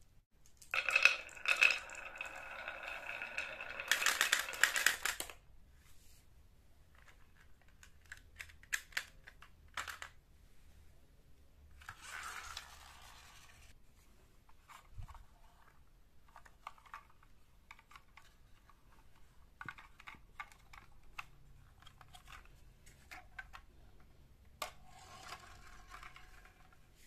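A handful of marbles clattering and rattling for about four seconds with a ringing click, followed by scattered light clicks and knocks of toys being handled and, midway, a brief rolling noise of a toy truck's wheels on the floor.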